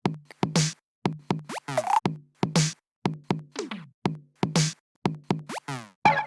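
Electronic ringtone from an Android 14 Go Edition phone (Xiaomi Redmi Go 2): a drum-machine beat with a low kick about every half second, snappy hits and a couple of quick sweeping zaps. Just before the end a different tone with held notes begins.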